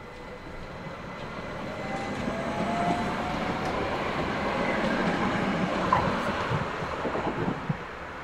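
An articulated electric tram approaching and passing close by, its running noise growing louder with a faint motor whine that rises in pitch. Its wheels clack several times over rail joints as it goes past.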